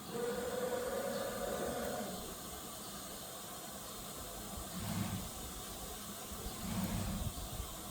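Axis drive motors of a Heliner H-1228AD nesting CNC router jogging the gantry: a short whine that rises slightly in the first two seconds, over a steady hiss, with two brief low hums about five and seven seconds in.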